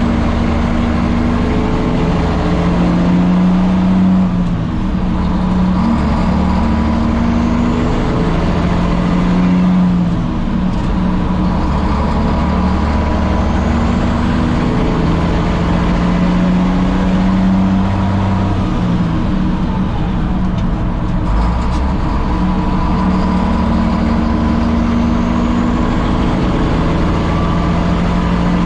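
Straight-piped Caterpillar diesel in a 1962 Peterbilt truck running down the road, with a loud, steady exhaust drone whose pitch changes several times.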